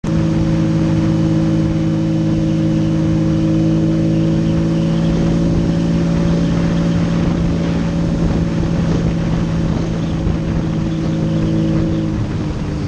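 Lamborghini Diablo SE30's V12 engine running at a steady pitch while the car drives, heard close up from the engine cover with road and wind noise. The engine note drops near the end.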